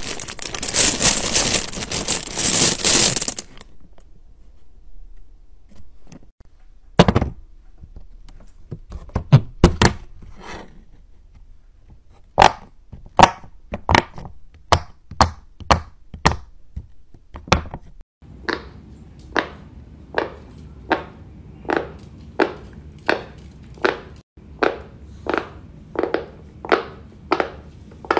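Pop-it fidget toy bubbles being pressed one after another, each giving a dull pop, settling into a steady run of a little over one pop a second. A scraping rustle of plastic being handled comes first.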